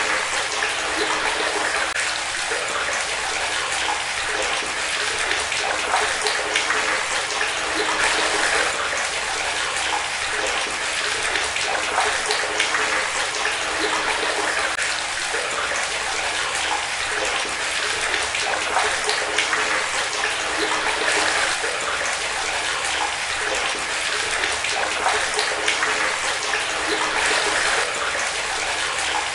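Water running in a steady, continuous stream, like a tap left running into a tub.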